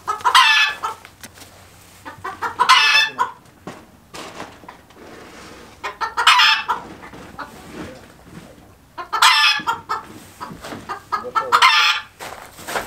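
Rooster calling loudly five times, one call about every two to three seconds.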